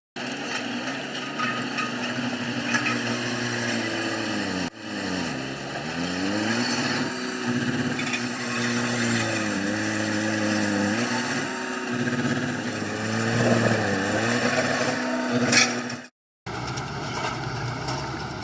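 Heavy earthmoving machine's diesel engine running. Its pitch dips and recovers several times as the engine speed changes under load. The sound cuts off abruptly about five seconds in and again near the end.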